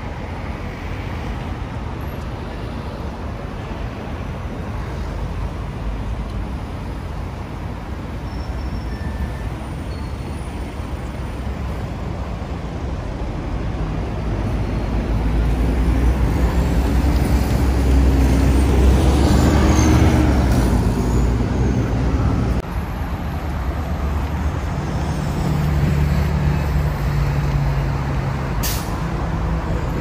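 Road traffic: the low engine hum of a heavy vehicle swells to its loudest around the middle and drops off sharply, and another engine comes up near the end.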